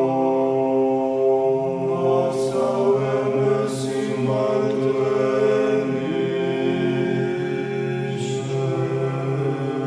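Slow vocal chant of long held notes, with a few hissed 's' sounds.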